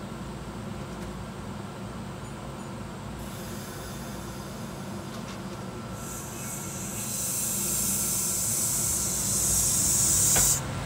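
Kintetsu 12200-series limited express train standing with its equipment humming steadily, then a loud hiss of compressed air that starts faintly about three seconds in, swells about six seconds in and cuts off sharply near the end as the train starts to pull away.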